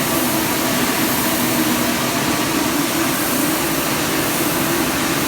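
FC Roaster 20 kg coffee roaster running: a steady, even whir of its motors and fans with a low hum.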